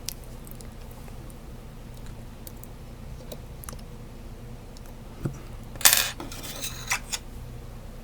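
Metal lock-picking tools being handled and clinking, with scattered small clicks and a brief, louder metallic clatter about six seconds in.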